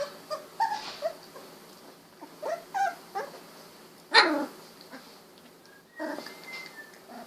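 Newborn Golden Retriever puppies, about two weeks old, whimpering and squeaking in short cries. About four seconds in comes one louder yelp that slides down in pitch.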